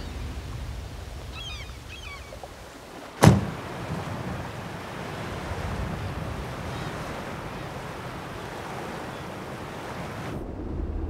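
Steady wind noise across open ground, with a few faint bird chirps early on and a single sharp thud a little over three seconds in.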